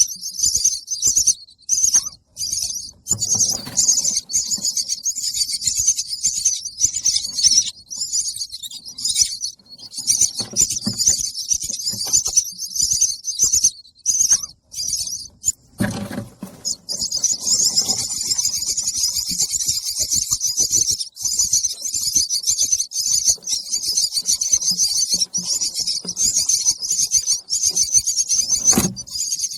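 Baby bird chirping rapidly and almost without pause in high, thin begging calls for food, breaking off briefly about halfway through. A few low thumps sound under the calls, the clearest about halfway and near the end.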